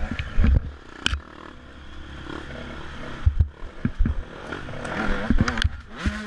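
Enduro dirt bike's engine running at speed over a rough trail, with repeated thumps and clatter as the bike hits bumps and rocks. The engine note builds toward the end.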